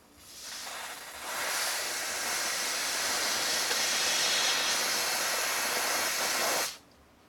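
Aerosol freeze spray hissing in one continuous blast of about six seconds as it chills an aged electrolytic capacitor during an ESR test. It starts softer for about a second, then runs at full strength and cuts off suddenly near the end.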